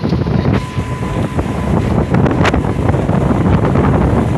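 Strong wind buffeting a phone microphone on an open speedboat running fast over the sea, mixed with the boat's running noise and the rush of water, a loud steady rumble.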